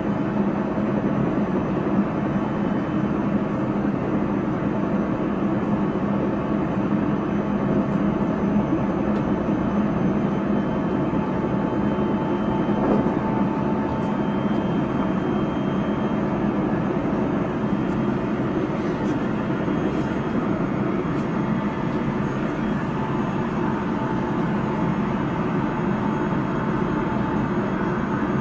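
Onboard running sound of a JR Central 373 series electric multiple unit travelling at steady speed: a continuous rumble of wheels on rail, with faint steady whines from the motors and inverter over it.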